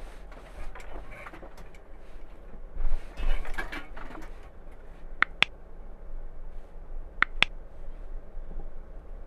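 Ram ProMaster camper van driving past and pulling away on a paved road: engine and tyre noise that swells as it passes, about three seconds in, then fades. Two pairs of sharp clicks come about two seconds apart in the second half.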